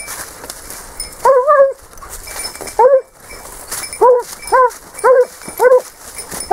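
Spanish hound giving tongue on the scent of a wild boar trail: about seven short bays, each rising and falling in pitch. One longer bay comes about a second in, a single one near the middle, then a quick run of them about every half second in the second half.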